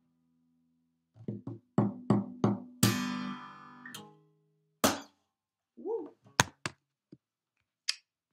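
Acoustic guitar finishing a song: a few plucked notes, then a strummed chord that rings out for about a second, then a single sharp slap. A few scattered knocks and clicks of handling follow near the end.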